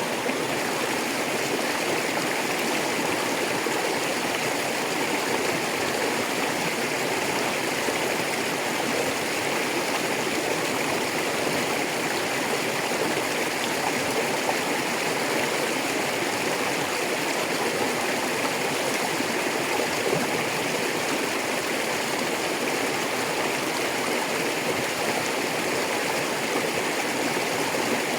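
A rocky river rushing and burbling over stones, a steady, even flow.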